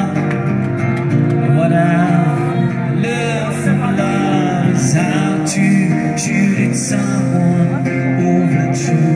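A busker's guitar, plugged into a small portable amplifier, playing chords while a voice sings a melody over it.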